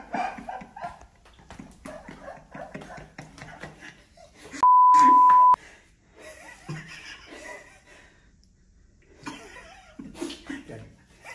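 A steady one-second censor bleep, a single pure beep tone about four and a half seconds in, cutting out a spoken word. It is set among a man's laughter and low, indistinct talk, with the laughter loudest at the start.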